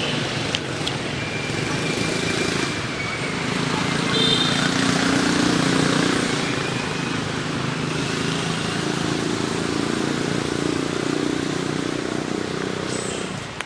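Steady low rumble of background traffic noise, with faint indistinct voices.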